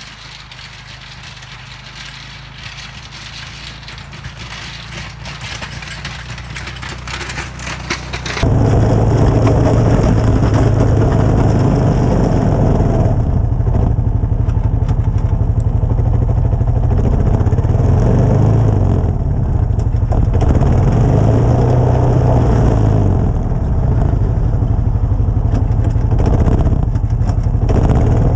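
Honda Foreman 450 ATV's single-cylinder engine pushing a snow plow down a driveway, growing steadily louder as it approaches. About eight seconds in the sound cuts abruptly to close up, where the engine runs loud and steady under load while plowing.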